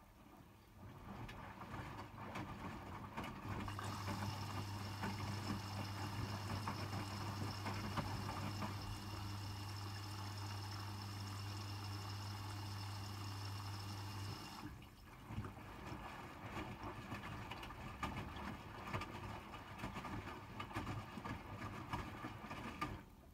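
Hotpoint WMFUG 942 washing machine in its rinse phase, with water running and sloshing in the drum. A steady low hum sounds from about three seconds in, and the sound changes at about fifteen seconds. The sloshing goes on until it stops just before the end.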